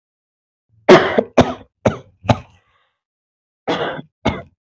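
A woman coughing in two bouts: four quick coughs about a second in, then two more near the end.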